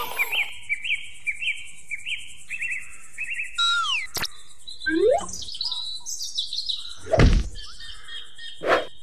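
Repeated bird chirps, about three a second, for the first three seconds or so. Then a falling whistle-like glide, a rising glide and three sharp knocks.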